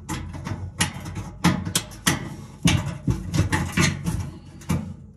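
A hand screwdriver turning a screw in the sheet-metal floor cover of a gas oven, making a string of irregular metallic clicks and scrapes.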